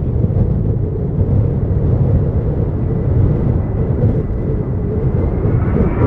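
Strong wind buffeting the microphone with a rough low rumble. Under it, the CFM56 jet engines of an approaching Boeing 737-800 on final approach whine faintly, the whine rising slightly in pitch and growing louder near the end.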